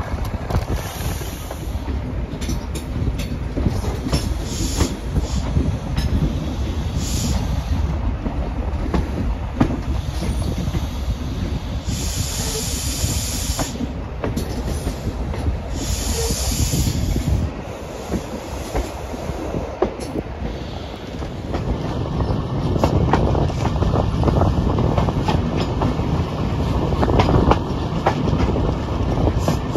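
InterCity 125 train running along the line, heard from an open coach window: a steady rumble of the Mark 3 coaches' wheels with repeated clicks over the rail joints. From about two-thirds of the way through, a thin, steady wheel squeal comes in and the running gets louder as the train rounds a curve.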